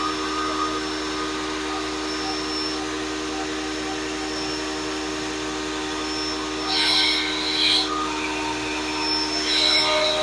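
Grizzly 8-inch jointer/planer combo running in planer mode with a steady motor hum. It grows louder and harsher twice, about seven seconds in and again near the end, as a board passes under the cutterhead.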